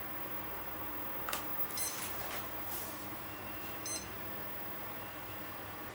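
Two brief high electronic chirps, about two seconds apart, and a few small clicks as the remote controller and the RC road roller model are powered up, over a faint low hum.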